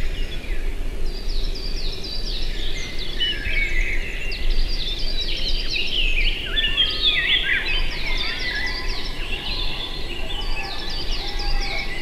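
A flock of tits calling, with many short high chirps and quick downward-sweeping notes overlapping throughout, over a steady low background rumble.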